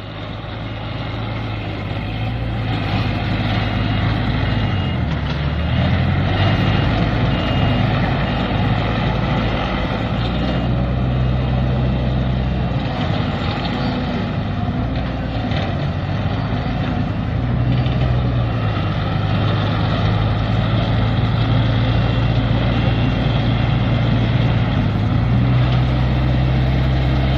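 Diesel engine of a crawler-tracked fire-fighting robot running as the robot drives and turns. It grows louder over the first few seconds, and its pitch shifts up and down as it manoeuvres.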